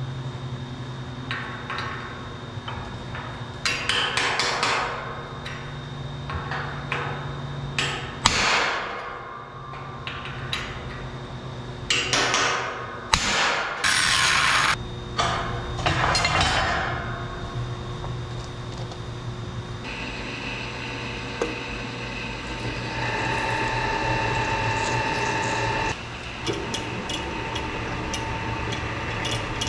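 A hammer tapping a transfer punch on steel to mark a hole. Then an angle grinder grinds steel in several loud bursts, and from about twenty seconds in a drill press runs steadily as it cuts a one-inch countersink in the steel.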